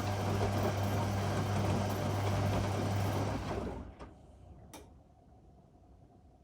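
Whirlpool Indiana 1400 washing machine running with a steady low hum over rushing water noise, which stops about three and a half seconds in. A single sharp click follows about a second later.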